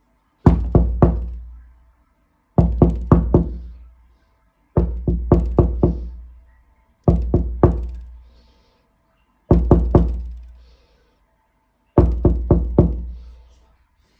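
Knocking on a door: six rounds of three or four quick knocks, the rounds about two seconds apart, each knock ringing out before the next round.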